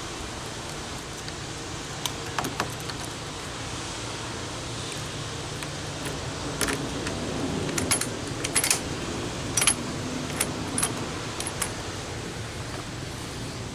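Scattered small metallic clicks and rattles, thickest from about seven to eleven seconds in, over a steady low hum.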